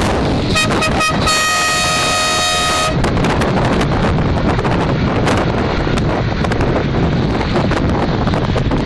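Car horn: two short toots, then one long honk of about a second and a half. A steady rush of road and wind noise from the moving car runs underneath.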